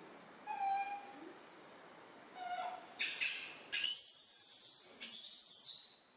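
Young macaques calling: two short coos, about a second and two and a half seconds in, then from about three seconds a run of loud, high-pitched squeals with sliding pitch.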